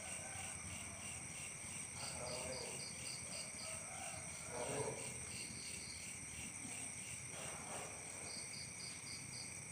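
Insect chorus of crickets trilling steadily, with three short runs of rapid high chirps, about six a second, and a few faint, short, lower calls in between.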